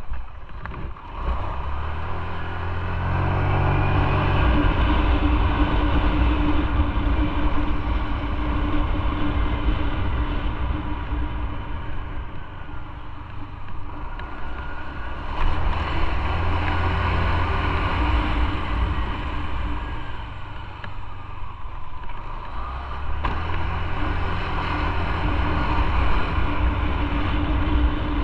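Motorcycle engine running while riding, with no speech. It swells louder as the throttle opens about three seconds in, again around fifteen seconds and twenty-three seconds in, and eases off in between.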